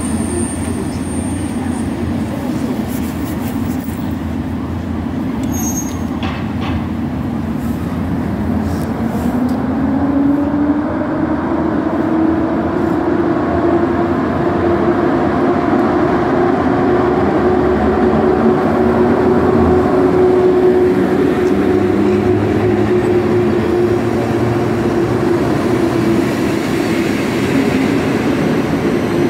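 EP07 electric locomotive pulling a passenger train away from the platform and past, with a steady rumble of wheels on rail. About ten seconds in, a whine rises in pitch as the train gathers speed, then holds steady while the coaches roll by.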